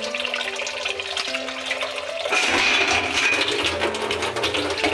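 Tap water running into a steel bowl of cut rui fish pieces as they are washed by hand, the flow getting louder a little past two seconds in. Background music plays underneath.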